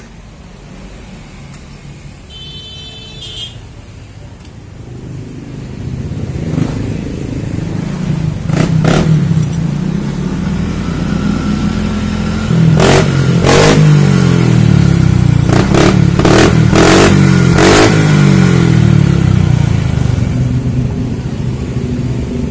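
Honda Genio scooter's 110 cc single-cylinder engine running through a newly fitted CSR aftermarket exhaust: low at first, then revved up from about six seconds in and held high through the middle with several sharp clicks, easing back down near the end. A brief high electronic chirp sounds about three seconds in.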